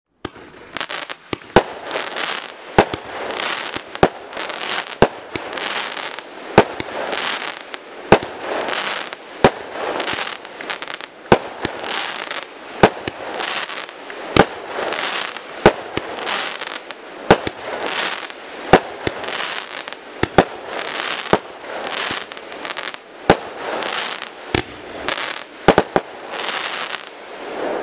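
Gaoo 'Choose' 20 mm fireworks cake firing shot after shot, a sharp report roughly every second. Between the reports runs a dense wash of crackling from the gold crackling bouquets.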